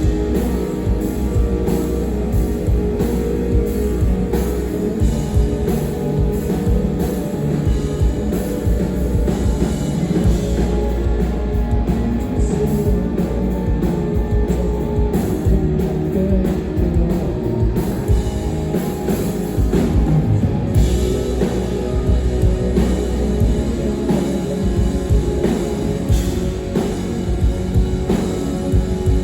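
Loud live rock music: distorted guitars and a pounding drum kit playing without a break.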